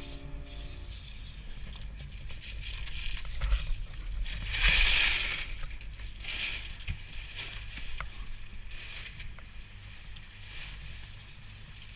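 Low rumble and rushing noise of a fishing boat at sea, with a louder rush about four to five seconds in and smaller ones after.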